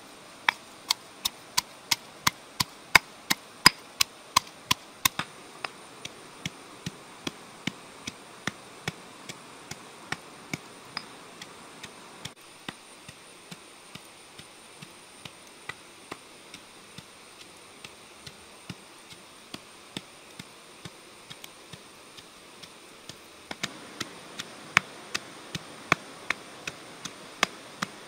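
Pestle pounding red chilies and garlic in a stone mortar, steady strokes about three a second, grinding them to a paste. The strokes are louder for the first few seconds and again near the end, softer in between.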